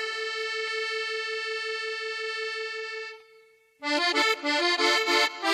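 Accordion playing a solo cumbia intro: one long held note that pulses quickly and fades away about three seconds in, then, after a brief gap, a quick run of short notes.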